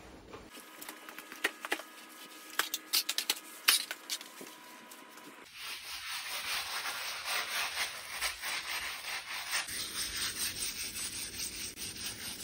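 Scrubbing a vinyl floor with a cleaning solution to lift the grime. A few scattered scrapes at first, then rapid, steady back-and-forth scrubbing strokes from about halfway on.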